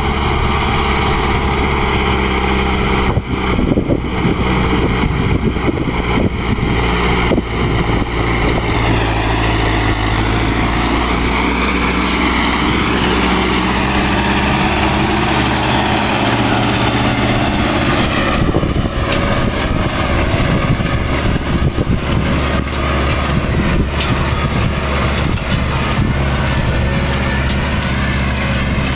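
Zetor 7340 tractor's diesel engine running steadily while it pulls a cultivator through a field. It passes close by partway through and then heads away, and its pitch shifts a little at those points.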